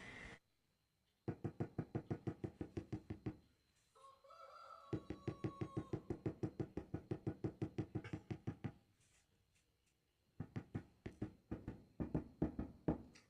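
Rapid tapping on ceramic floor tiles, about seven knocks a second, in three runs with short pauses between them. The tiles are hollow underneath.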